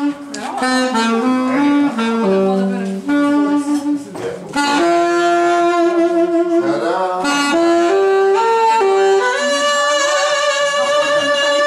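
Saxophone playing a solo melody: a run of short stepping notes, a brief break for breath about four seconds in, then longer held notes ending on a long high note.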